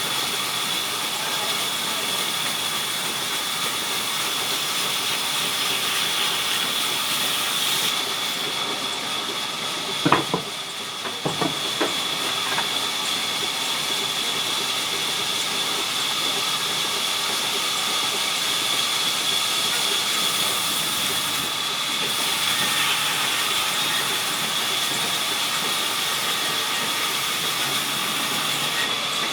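Sawmill saw running and cutting timber: a steady hiss with a high, constant whine. A few sharp knocks come about ten to twelve seconds in.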